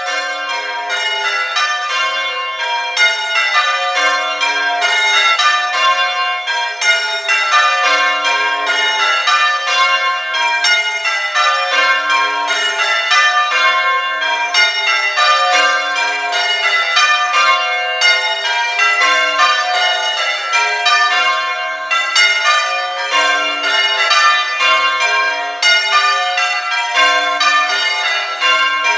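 Church bells change ringing: a tower's bells struck one after another in an even, unbroken rhythm, each row stepping down in pitch to the lowest bell, the tenor.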